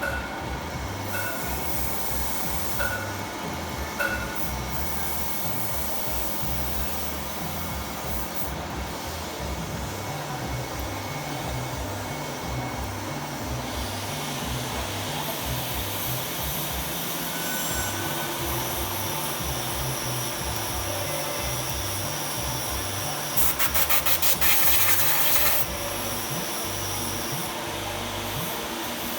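Lathe running with a steady machine hum, and about three-quarters of the way through a couple of seconds of louder rasping, chattering noise as material is cut.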